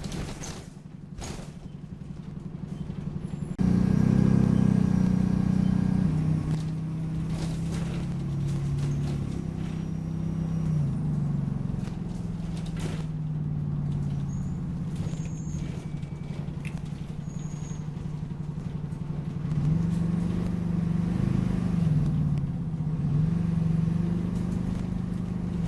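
Optare Solo midibus's engine running under way, its pitch rising and falling as the bus accelerates and changes gear, louder from about four seconds in. A few brief faint high squeaks come through midway, the squeaky noise this bus has.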